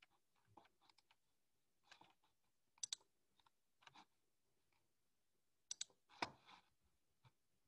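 Faint scattered clicks of a computer keyboard and mouse, with quick double clicks about three seconds in and again near six seconds, followed closely by a louder knock.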